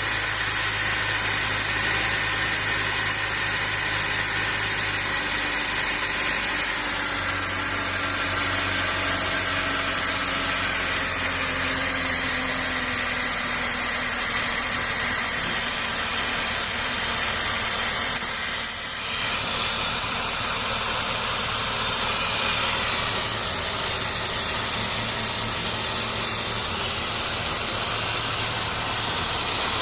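BMW 530i's straight-six engine idling steadily, with a steady high hiss over it. This is the engine that the owner says knocks and rattles strangely after a cold start.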